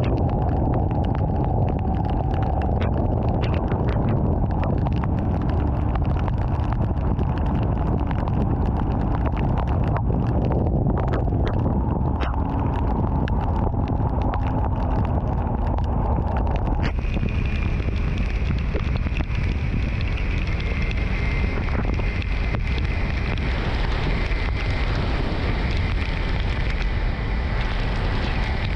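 Steady rumble of wind buffeting the microphone along with vehicle road noise while on the move. About seventeen seconds in, the noise abruptly turns brighter and hissier, and a faint high whine sits above it.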